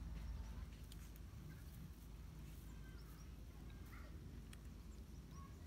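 Quiet outdoor ambience: a steady low rumble with a few faint, short bird chirps scattered through it.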